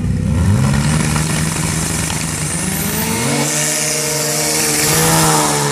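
Turbocharged snowmobiles launching off the drag-race start line, their engine note climbing in steps as they accelerate away down the snow track. The sound grows loudest about five seconds in.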